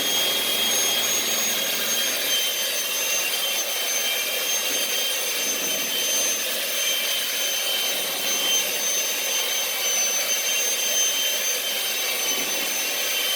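Electric hand mixer beating cake batter, its motor running steadily with a thin high whine over a whirring hiss.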